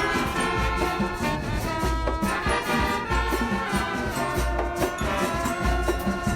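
Background music with a steady beat: a bass pulse, pitched instrument tones and shaker-like percussion.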